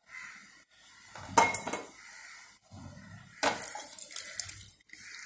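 Kitchenware clinking, with a sharp clank about a second and a half in. Then boiled amaranthus leaves and their cooking water are poured from a pot into a perforated stainless steel colander over a glass bowl: the water splashes through, and the pot clatters against the colander about three and a half seconds in.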